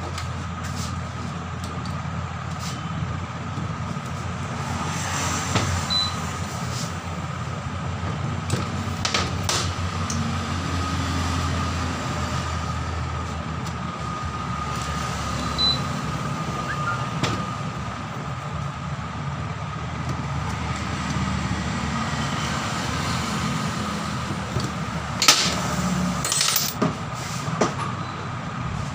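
Metal hand tools clinking and tapping against an air impact wrench's housing and fittings as it is screwed back together, a few sharp clicks over a steady background hum.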